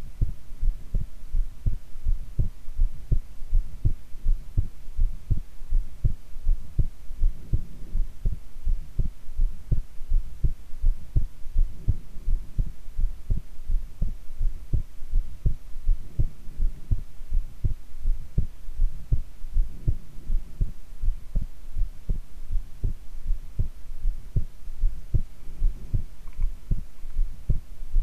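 A woman's heartbeat recorded close up while she lies face down: a steady, even rhythm of low thumps, with a faint steady hum behind it.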